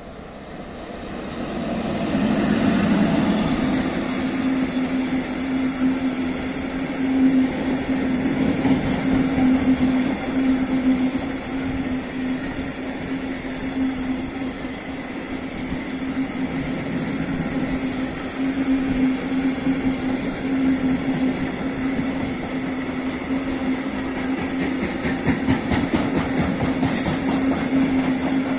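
Freight train of tank wagons hauled by an electric locomotive passing close by: it grows loud over the first three seconds as the locomotive comes past, then the wagons keep up a steady rumble and wheel clatter with a steady low hum. A run of sharp wheel clacks comes near the end.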